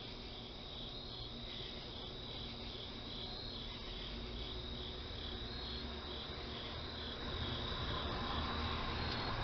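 Crickets chirping in a steady pulsing chorus, about three pulses a second, over a low rumble that grows louder near the end.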